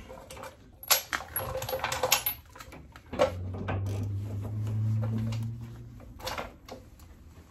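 A hand wrench clicking and clinking on metal suspension and brake-line fittings as a fitting is loosened, with a cluster of sharp clinks in the first half and a few more near the end. A low steady hum runs for about three seconds in the middle.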